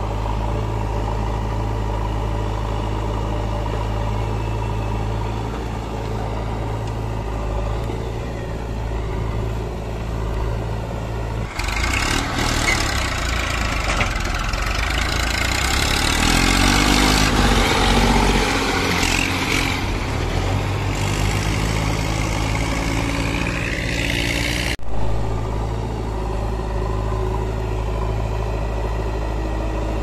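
Diesel engines of a JCB 3DX backhoe loader and a Massey Ferguson tractor running at a steady idle. Partway through, the sound changes to a louder, rougher engine sound with a lot of hiss and some rise and fall in pitch. About 25 s in it switches back to the steady idle.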